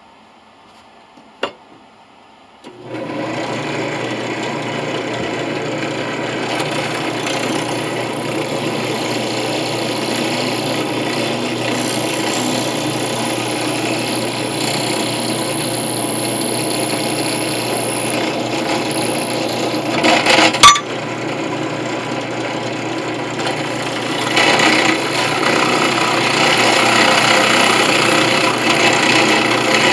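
Electric drill starting about three seconds in and running steadily, its bit grinding into a brass coin with a rasping scrape. One sharp knock partway through, and the cutting gets louder near the end.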